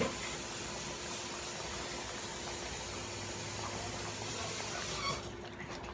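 Kitchen tap running in a steady hiss while a measuring cup is filled with water, shut off about five seconds in.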